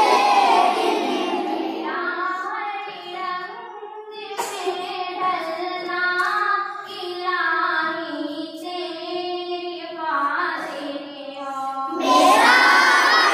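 Children singing an unaccompanied Urdu hamad: the group's voices fade out at the start, a single child's voice sings a line alone, and about a second before the end the whole group comes back in loudly.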